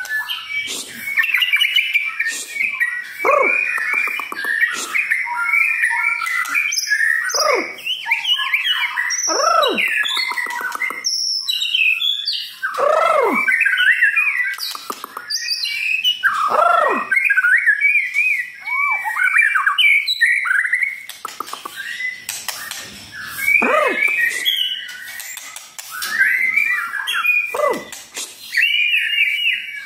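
White-rumped shama (murai batu) singing a long, varied song: whistled phrases, many sweeping steeply down, mixed with quicker twittering and chattering notes, with only short gaps between.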